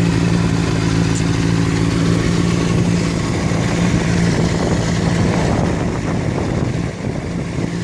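2006 Honda CBR600RR's inline-four engine idling steadily, with the clicking noise that the owner is hearing and asking about.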